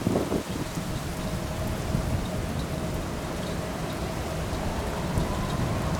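Heavy rain hissing steadily, with a low rumble underneath. A faint thin whine runs through it and rises slightly in pitch after about four seconds.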